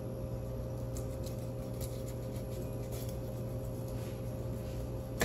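Faint scattered clicks and snips of kitchen scissors cutting through a fish's fin at its base, over a steady low hum in the room.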